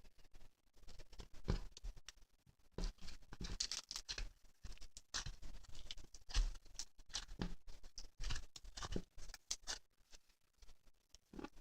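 Irregular light taps and scratchy scraping at close range, uneven in spacing, like small objects being handled.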